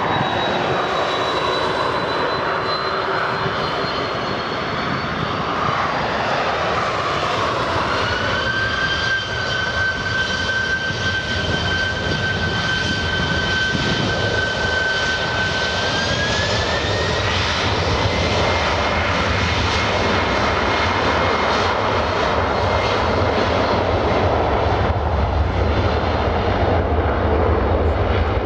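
Boeing 767-400's twin jet engines spooling up for takeoff: a steady whine that rises in pitch about eight seconds in and again about seventeen seconds in. A low rumble grows near the end as the airliner rolls away down the runway.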